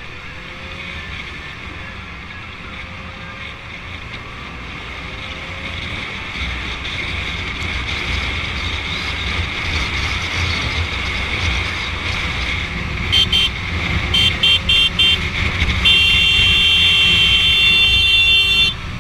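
Motorcycle engine and wind rush growing louder as the bike picks up speed, then its horn sounding a quick run of short beeps followed by one long blast of about three seconds at a car merging into its lane.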